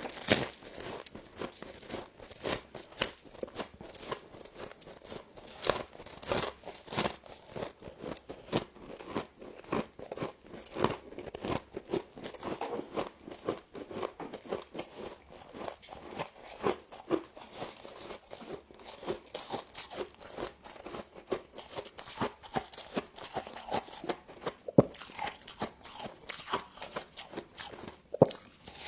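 Crunching and chewing of frost: a dense, continuous run of crisp crunches, with a couple of louder sharp cracks near the end.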